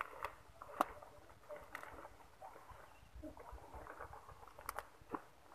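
Faint rustling of grass and weeds with scattered light clicks and snaps, as someone steps through bankside vegetation.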